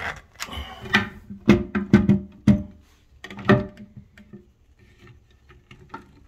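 A series of sharp clacks and knocks, about half a dozen loud ones in the first four seconds and fainter ticks after, each with a short ringing tone: a screwdriver working screws into the toilet seat's plastic hinge adapters, knocking against the seat and porcelain.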